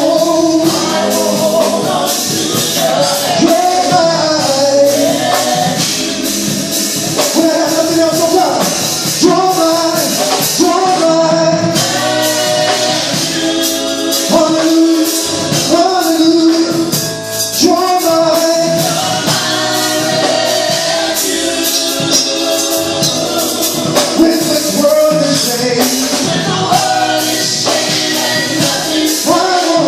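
Live gospel praise team singing with a band, a tambourine shaking throughout.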